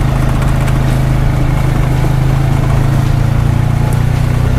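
Honda Pioneer 520 side-by-side's engine running at a steady, unchanging speed.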